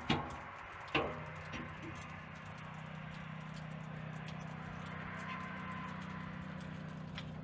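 Two sharp metal knocks about a second apart and a few light ticks from the sawmill blade sharpener being handled and set between grinds, over a faint steady hum.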